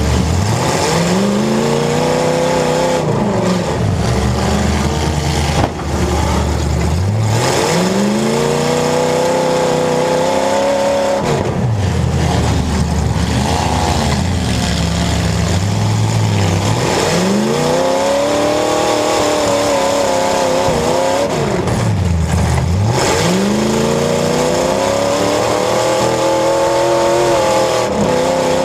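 Demolition derby car engine revving hard, again and again: about five times the pitch climbs as it accelerates, then drops back off.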